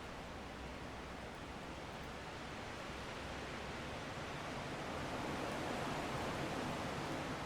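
Strong wind blowing steadily, swelling into a louder gust in the second half.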